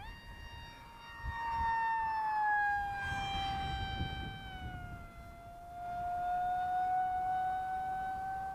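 Electric ducted-fan RC model jet whining in flight. The pitch steps up right at the start, glides down over the next few seconds, then holds steady, growing louder twice as the jet passes near.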